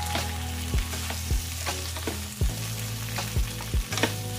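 Pork and bagoong alamang (fermented shrimp paste) sizzling in hot oil in a pan while being stirred, with a utensil knocking against the pan about six times at uneven intervals.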